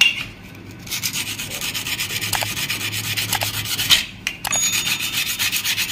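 A small piece of sandpaper rubbed rapidly back and forth by hand along the edge of a sewing machine's sheet-metal face plate, with a short pause about four seconds in. The sanding rounds off a sharp burred edge that was cutting the thread.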